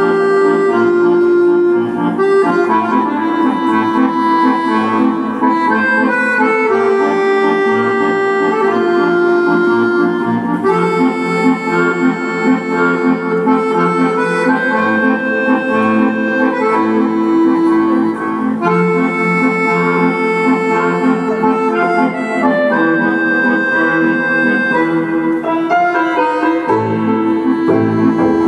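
Argentine tango music, with a bandoneon carrying long held melody notes over a steady rhythmic pulse.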